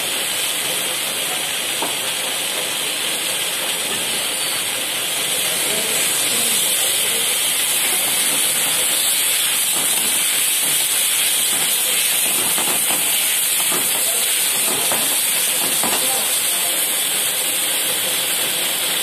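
Chilli chicken and vegetables sizzling in a wok over a high gas flame: a loud, steady hiss, with the metal spatula now and then scraping against the wok.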